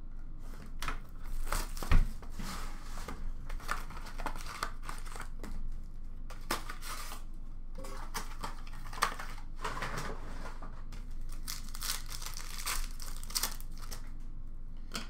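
Hockey card box and its shiny wrapped packs being opened by hand: irregular tearing and crinkling of wrappers and card stock, with a sharp knock about two seconds in.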